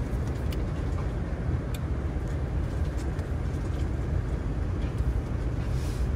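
Motorhome on the move: a steady low rumble of engine and road noise, with a few faint clicks.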